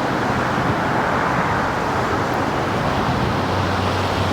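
Steady rushing noise of a mountain creek flowing below, with road traffic mixed in; a low steady hum joins near the end.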